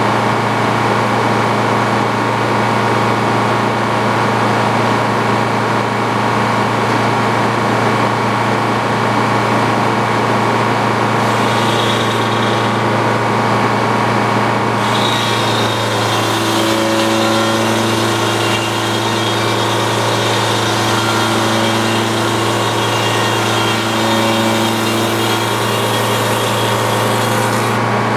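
Antique Frick sawmill running steadily, the mill's engine and spinning circular saw droning. About halfway through, higher hiss and wavering tones join in.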